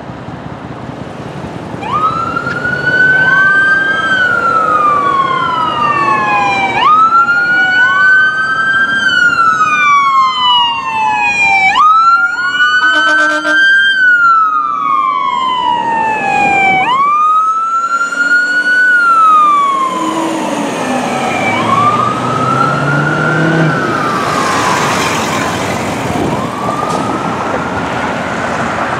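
Emergency sirens on a fire engine and a rescue ambulance wailing together. Each rises quickly and falls slowly in cycles of about five seconds, the two sirens slightly out of step. They fade somewhat after about twenty seconds as the vehicles move on.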